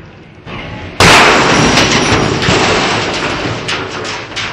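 A washing machine lands after a fall of about 40 feet: one sudden, very loud crash about a second in. Then comes a few seconds of clattering and rattling as the sheet-metal cabinet breaks up, fading slowly.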